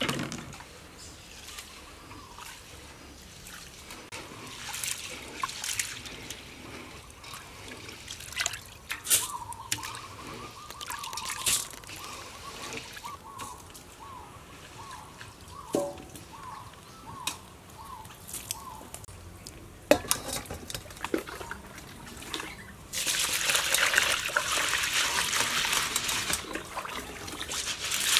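Soaked sticky rice being washed by hand in water in a steel bowl, with soft swishing and light clicks of grains against the metal. About five seconds before the end, water pours loudly and steadily through the rice in a steel colander as it is rinsed.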